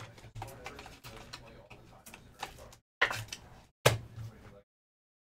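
Light clicks and rustles of trading cards and plastic card sleeves being handled on a table, with two sharper taps about three and four seconds in. The sound cuts off suddenly near the end.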